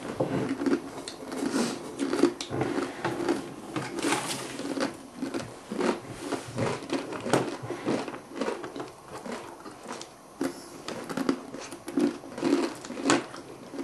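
Dry, uncooked instant noodles being crunched and chewed, with the brittle pieces rustling as hands pick them out of a glass bowl. Irregular crunches come thick and fast throughout.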